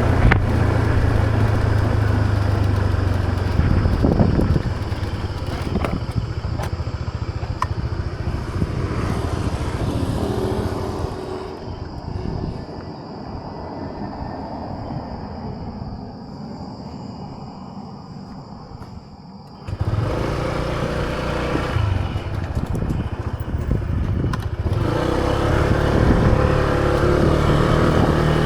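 Motor scooter engine running on the move, with rough wind and road noise. Around the middle it drops away to a quieter stretch with a steady high-pitched buzz, then comes back suddenly about twenty seconds in.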